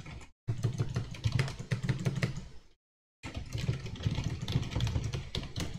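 Typing on a computer keyboard: a quick run of key clicks over a low thudding, with two short drop-outs to silence, about half a second in and near the middle.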